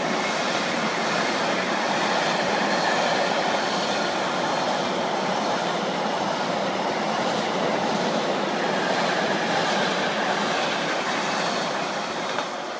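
Container wagons of an intermodal freight train rolling past: a steady rush of wheels on rail that begins to fade near the end as the last wagons go by.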